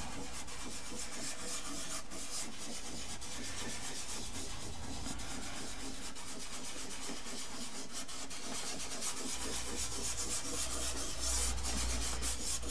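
A fingertip rubbing soft pastel into the tooth of pastel paper in tiny circles, blending and softening the colour: a steady, soft scratchy rasp that grows a little louder near the end.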